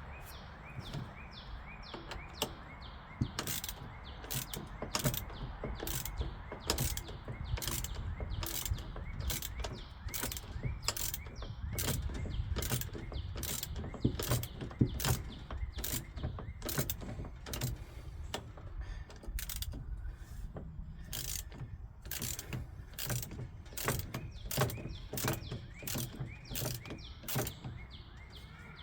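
Sharp metallic clicks from hand tools working on mower parts, irregular, about one or two a second, over a low rumble.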